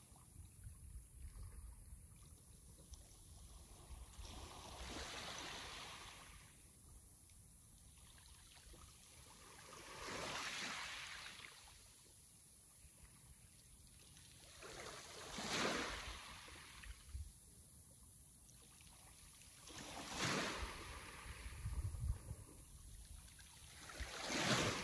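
Sea waves washing ashore: five waves in turn, about one every five seconds, each a swell of surf noise that rises and falls away, the last the loudest, with a low rumble between them.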